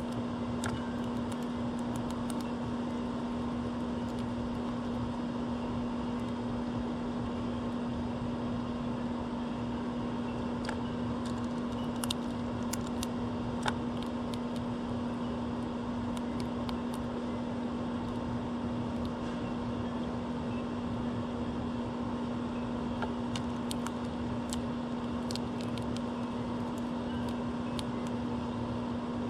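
A steady machine hum at one pitch over a noisy background, with scattered faint clicks.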